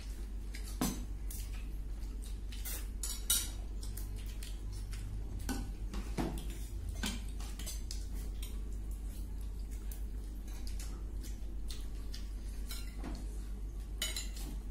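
Eating utensils clicking and tapping against bowls and plates: scattered, irregular clinks, a few sharper ones about a second in, near three seconds and near the end, over a steady low hum.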